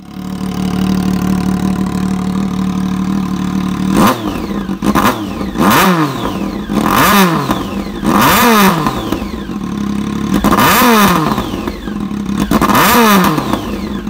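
2006 Triumph Daytona 675's 675 cc inline-three running with no rear muffler, factory catalytic converter still fitted. It idles steadily for about four seconds, then is blipped about six times, each rev rising sharply and falling back to idle.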